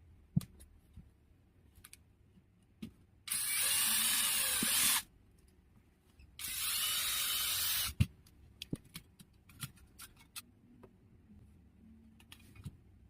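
Small electric screwdriver or drill motor whirring in two bursts of about a second and a half each, with small clicks and knocks of handling before, between and after; the set-top box casing is probably being opened.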